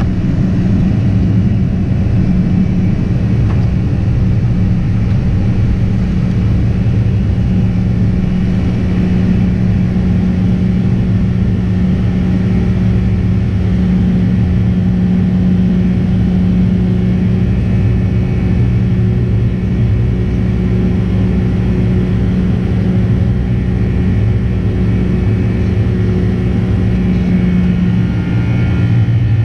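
Boeing 767-300ER's twin turbofan engines at takeoff power, heard inside the cabin through liftoff and initial climb: a loud, steady rumble with a constant low drone.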